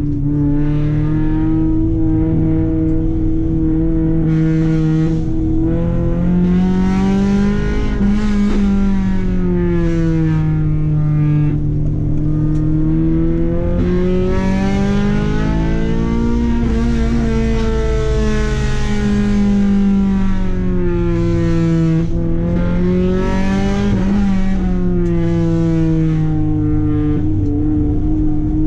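Honda H22A Euro-R 2.2-litre four-cylinder VTEC engine, fitted with a 4-2-1 header and 3-inch exhaust, heard from inside the cabin as the car is driven hard through bends. The engine pitch climbs and falls about three times as it revs up and eases off.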